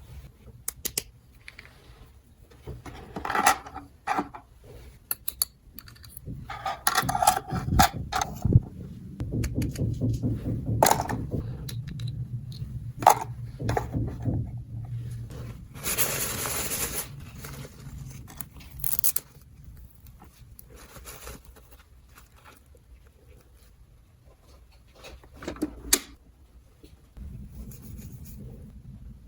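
Small plastic dollhouse toy pieces being handled, clicking, knocking and scraping against each other, with a rustle of packaging about halfway through.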